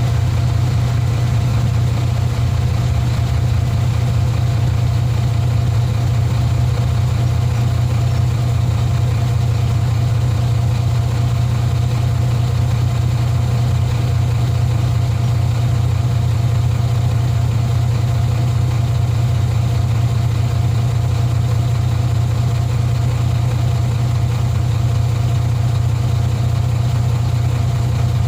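Heavy diesel engine idling steadily: a constant low hum that holds the same pitch and level throughout, with no revving.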